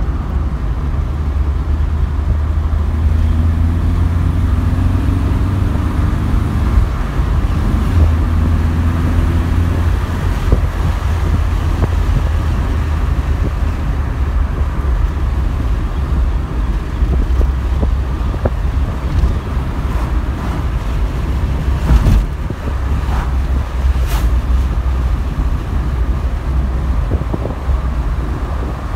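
Opel Manta GTE being driven, with a steady low engine and road rumble. The engine note rises under acceleration a few seconds in and again around ten seconds, and a couple of sharp knocks come about two-thirds of the way through.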